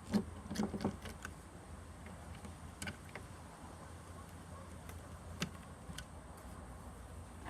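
Short plastic clicks and knocks as the mirror assembly is worked free of the car door: a quick cluster in the first second, then a few single clicks spaced out.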